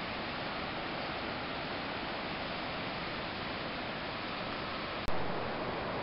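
Steady, even hiss with no distinct sound in it, broken about five seconds in by a brief dropout and a sharp click.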